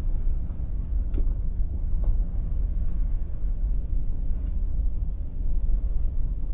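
Automatic car wash heard from inside the car's cabin: a steady low rumble as the wash works over the car, with a few faint knocks.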